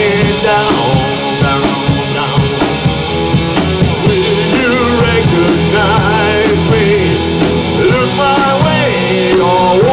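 Live rock band playing: electric guitars over a drum kit with steady cymbal strokes.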